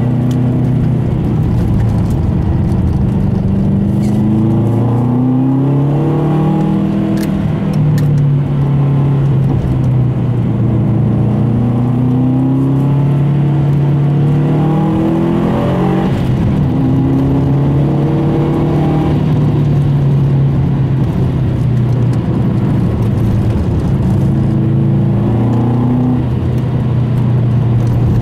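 Car engine heard from inside the cabin while driving. The revs climb and drop back several times in the first few seconds as it shifts up through the gears, rise and fall again about halfway through, then hold steady near the end.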